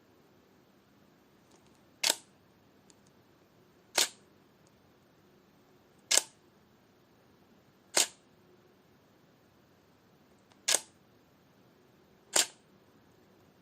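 Camera shutter firing six separate times, one sharp click about every two seconds, with a faint steady hiss between the clicks.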